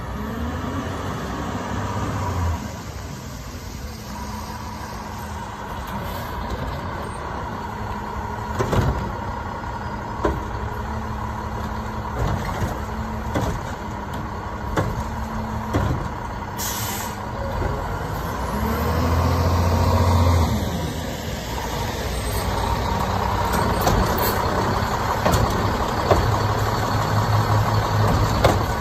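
Autocar WXLL garbage truck with a McNeilus front-loader body and Curotto Can cart arm running, its engine revving up and down as the arm works. Metal clanks and knocks come from carts being tipped, and there is a hiss of air brakes about two-thirds of the way through.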